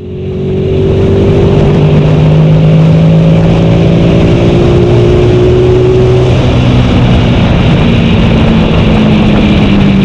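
Motorcycle engine running at a steady cruise on the road, its pitch drifting slowly, over a constant rush of wind and road noise; it fades in about a second in.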